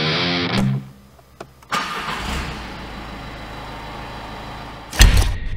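A car engine being started at a push-button ignition. A click and a sudden sound come about a second and a half in, then a steady low hum. Near the end the engine fires with a loud burst and settles into a low idle.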